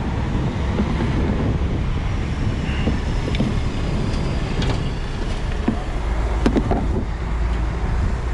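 Steady low rumble with wind on the microphone, broken by a few sharp metal clinks as an adjustable wrench works the brass air-line fitting of a semi truck's emergency gladhand hose.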